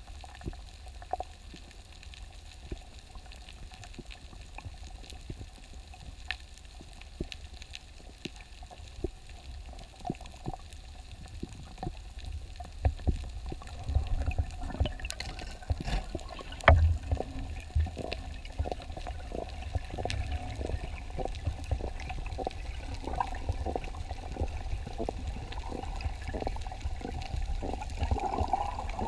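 Underwater sound from a spearfishing dive: a low, steady water rumble with scattered sharp clicks and ticks. A run of ticks at about two a second sets in past the middle.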